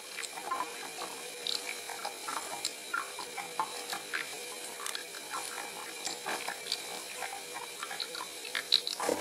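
Water heating and bubbling, with irregular small pops and crackles over a steady hiss and a faint steady hum. There is a louder flurry of pops near the end.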